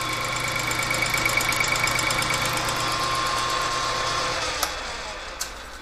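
Metal lathe running with the chuck spinning while a light facing cut is taken on a welded clutch housing, a steady motor hum with constant tones. About four seconds in it is switched off and winds down, with two sharp clicks near the end.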